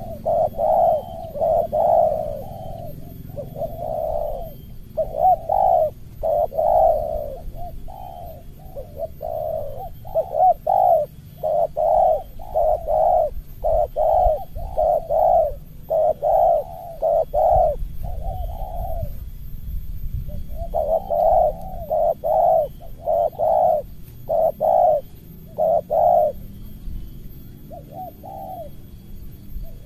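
Spotted dove cooing: a long series of short, low coos, about one or two a second, grouped in phrases, with a brief pause about two-thirds of the way through and again near the end.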